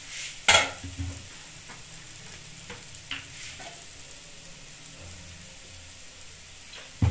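Semolina with peas and spices frying gently in a kadai: a faint, steady sizzle. One sharp knock comes about half a second in, with a few light clicks after it.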